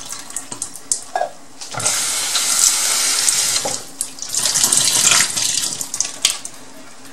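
Water pouring out into a kitchen sink in two spells of about a second and a half to two seconds each, with a few light knocks: the liquid being drained from a can of straw mushrooms.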